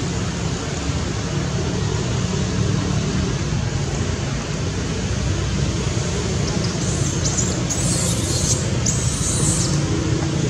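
Steady outdoor background noise, heaviest in the low end, with three short high hissing bursts in the second half, about seven, eight and nine seconds in.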